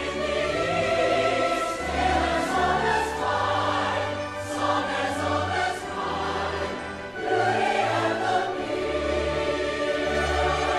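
Orchestral music with a choir singing sustained, slow phrases over low bass notes.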